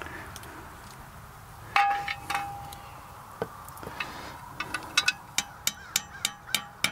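Hammer tapping stainless steel lag bolts into their wall anchors through the hose-reel mounting bracket, each blow ringing with a clear metallic tone. A few strikes come about two seconds in, then a quicker run of taps, about three a second, near the end.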